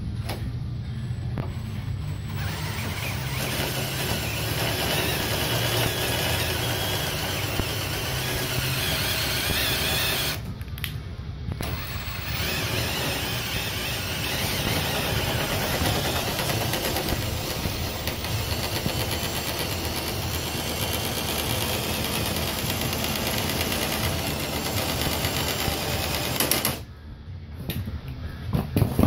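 Power drill spinning the 3/8-inch threaded rod that drives the table saw fence along its rail, running steadily. It stops briefly about ten seconds in and cuts off near the end.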